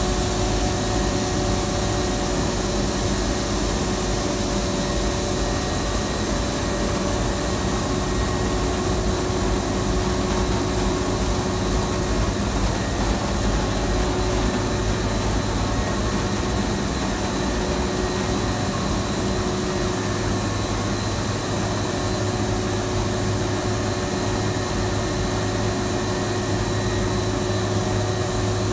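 PE extrusion coating machine for paper-cup board running: a steady mechanical rush with a low hum and a few faint steady whining tones, unchanging throughout.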